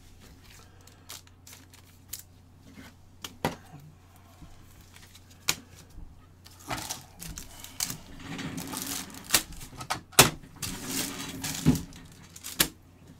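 Trading card packs and their foil wrappers being handled: scattered clicks and taps, then from about halfway in a denser run of crinkling and rustling as a pack is torn open and the cards are pulled out.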